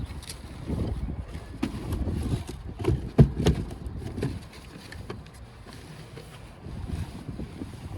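Wind buffeting the microphone in an uneven low rumble, with a few sharp knocks and clicks, the loudest about three seconds in.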